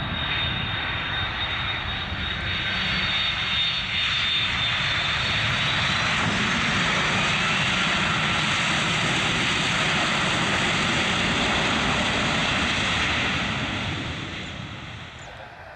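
Boeing 757-200 airliner's jet engines during the landing rollout just after touchdown: steady jet engine noise that builds a couple of seconds in, holds, then fades away near the end. A faint high whine sinks slightly in pitch over the first few seconds.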